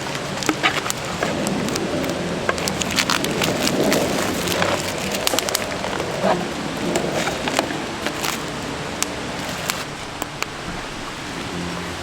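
Wood campfire crackling, with many irregular sharp pops and snaps over a steady hiss of burning.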